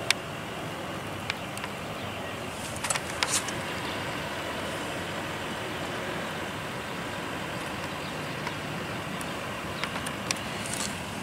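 Steady background hiss and rumble, with a few short sharp clicks about three seconds in and again near the end.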